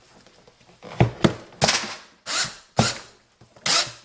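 A tool working in about half a dozen short, sharp strokes, starting about a second in, each fading quickly.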